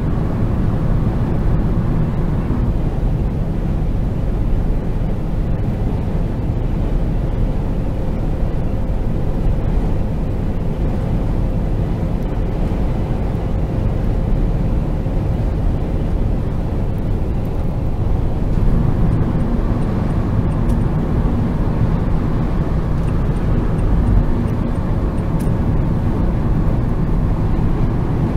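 Opel Vivaro 1.9 CDTI four-cylinder turbodiesel van on the move: steady engine running under way with road and tyre noise.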